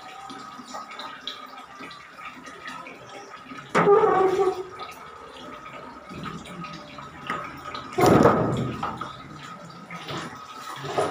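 Water bubbling and trickling in a tarpaulin-lined fish tank, with a faint steady whine underneath. Two louder, sudden noises break in about four and eight seconds in.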